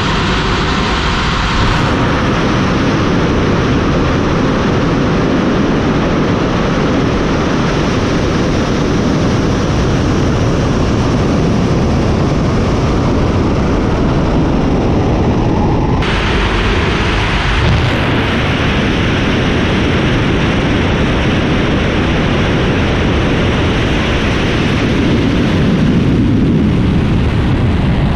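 Soyuz-2.1b rocket's first-stage engines (four strap-on boosters plus the core stage, burning kerosene and liquid oxygen) firing at ignition and liftoff: a loud, continuous rushing noise of rocket exhaust. Its tone changes abruptly about sixteen seconds in.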